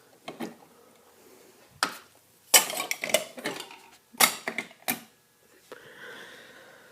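Clicks, knocks and clatter of a fire alarm control panel's metal enclosure being handled, in several short clusters.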